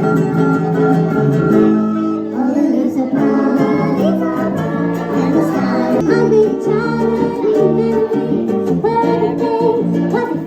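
Background music: a song with singing over strummed guitar or ukulele.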